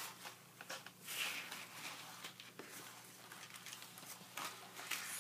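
Soft rustles and light taps of sheets of scrapbook paper being handled, the loudest right at the start.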